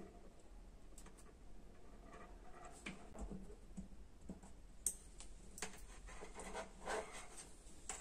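Faint scratching and scattered light clicks from hands handling a small circuit board, its wires and a small speaker.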